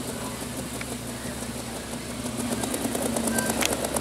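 Engine of a lowered Studebaker Transtar pickup running at low revs as the truck rolls slowly past, getting louder over the last second and a half as it comes closer.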